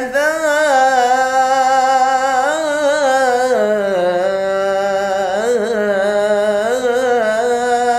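A man chanting a line of Arabic verse unaccompanied, drawing it out in one long ornamented melodic run; the pitch dips lower about halfway through and climbs back near the end.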